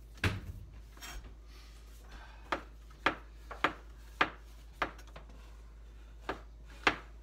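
Chef's knife slicing mushrooms on a plastic cutting board: about eight sharp knocks as the blade comes down through each slice onto the board, roughly half a second to a second apart.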